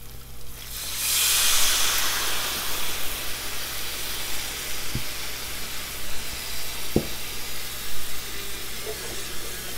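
Half a cup of white wine hits a hot electric skillet of onions and garlic sautéing in oil, bursting into a loud hiss and sizzle about a second in as it deglazes the pan, then settling into a steady sizzle. Two light knocks come partway through.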